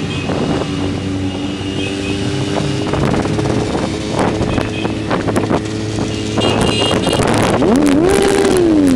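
Motorcycle engines running steadily at low speed in a group ride, with wind buffeting on the microphone. Near the end one engine revs up sharply and falls back.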